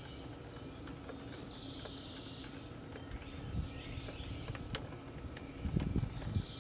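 Quiet outdoor background with a bird calling twice in short high trills, and a few light clicks and soft knocks from handling the loose door panel and its wiring plugs.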